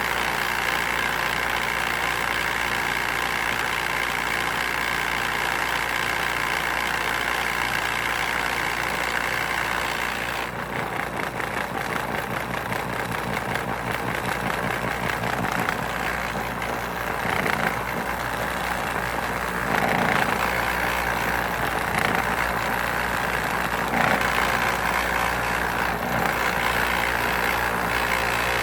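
Motor-driven compost sifter running with a steady mechanical drone; its tone changes about ten seconds in.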